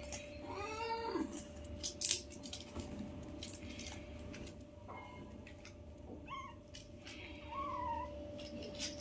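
Kitten meowing: one meow rising and falling in pitch about a second in, then two short, fainter mews near the end. Scattered sharp clicks and rustles run between them, the loudest about two seconds in.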